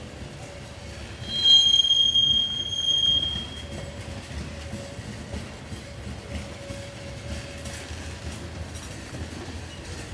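Freight train of covered hopper cars rolling slowly past, with a steady low rumble of steel wheels on the rails. About a second in, a loud high-pitched wheel squeal rings out for about two seconds, then stops.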